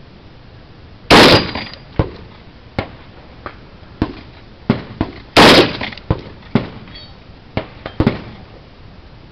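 Two loud shots from a scoped rifle, about four seconds apart, the first about a second in, each with a short echoing tail. About a dozen much fainter sharp cracks fall between and after them.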